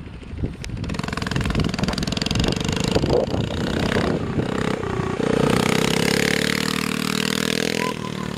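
Coleman CT100U mini bike's small single-cylinder engine revving under throttle as it is ridden, building up, loudest from about five seconds in, then dropping off near the end.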